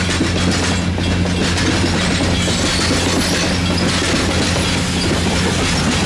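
Passenger railroad cars rolling slowly past at close range, their steel wheels clicking and rattling over the rail joints, over a steady low hum.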